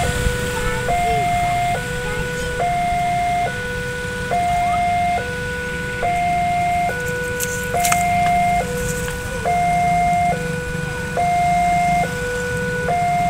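Electronic railway level-crossing warning alarm sounding its repeating two-tone signal, a higher and a lower tone alternating, each held a little under a second. It signals that a train is approaching and the barriers are down. Low road-traffic rumble runs beneath it.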